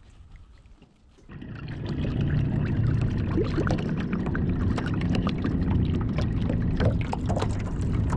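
A small motor starts up about a second in and runs steadily, with water pouring and splashing over it.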